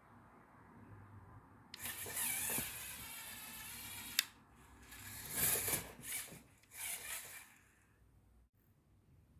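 Lego Technic buggy's electric motors and plastic gears whirring, with a faintly wavering whine: one run of about two and a half seconds, then three shorter bursts.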